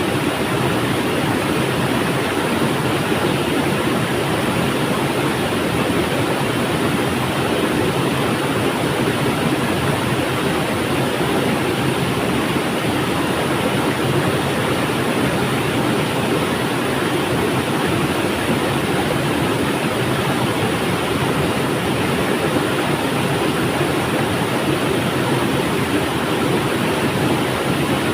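Flowing river water: a steady, even rush with no breaks or single splashes.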